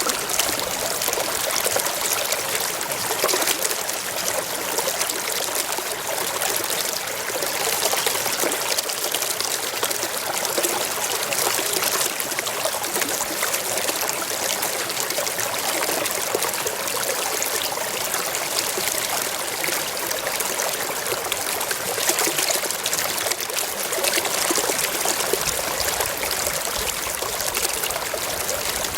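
Mountain stream flowing over rocks: a steady, even rush of water with a fine splashing trickle.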